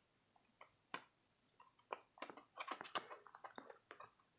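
Faint scattered clicks and taps of hands handling a camera grip rig and the phone mounted on it while fitting a light, coming thick and fast in the second half.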